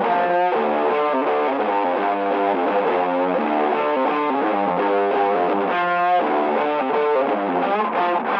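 Background music: a repeating guitar figure played through distortion and effects.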